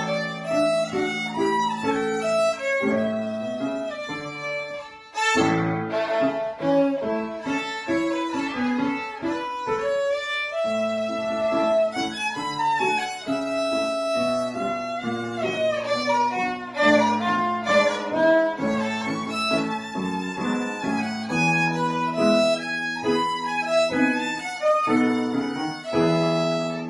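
Violin playing a melody in a recital piece over sustained lower accompanying notes, with a short break about five seconds in.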